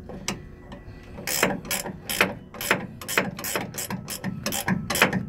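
Ratcheting wrench clicking in short quick strokes as it tightens the nut on a bronze seacock. It starts about a second in and goes at about four or five clicks a second.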